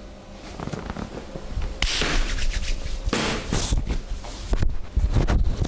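Hands working a person's back and shoulders in a chair massage: rubbing and scraping friction comes in bursts, and a few sharp clicks and slaps come close together about five seconds in.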